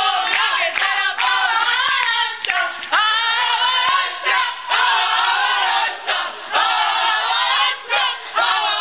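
A group of people singing together in chorus, in phrases with short breaks, with some hand clapping.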